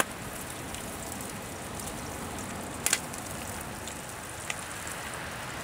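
Meat sizzling over a campfire, overcooking: a steady hiss with a few sharp crackles, a double one about three seconds in and a smaller one near the end.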